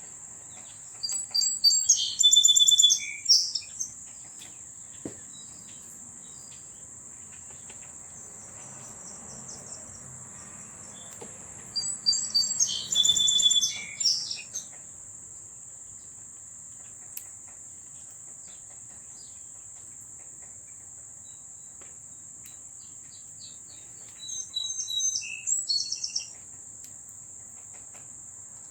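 A songbird sings three short, rapid warbled phrases about ten seconds apart, over a steady high-pitched trilling of insects.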